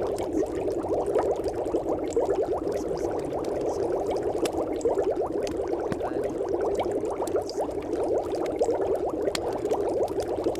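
Steady, dense bubbling like water at a rolling boil, many small rising pops packed together, with faint light ticks above it. It serves as the audible cover track over which the subliminal affirmations are meant to go unheard.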